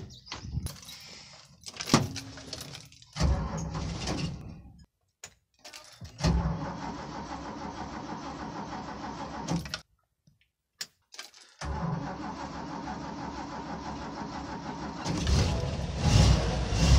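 Toyota FJ40 Land Cruiser's carbureted straight-six being started, with keys jangling and knocks at first, then several short engine tries separated by silent gaps. The engine then catches and runs steadily, revving louder near the end.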